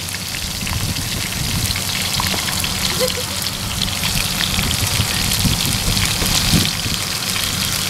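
Pieces of field rat frying in hot oil in a pan, crackling steadily.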